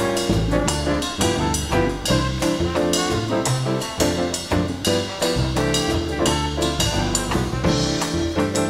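Live dance band playing an instrumental passage: brass, including trumpets and trombones, over drum kit in a steady rhythm, in the style of 1930s–40s Latin and swing dance music.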